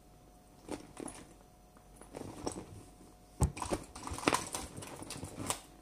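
Rummaging through a handbag: scattered rustles, clicks and light knocks of things being handled, with the sharpest knock about three and a half seconds in.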